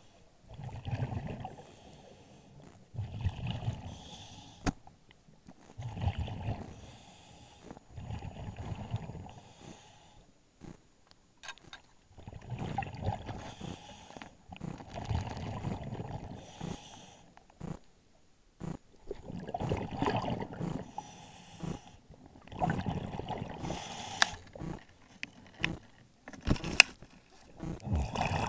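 Scuba diver's breathing through a regulator, heard underwater: repeated breath cycles with bubbly exhaust rumble, every two to three seconds, and a few sharp clicks.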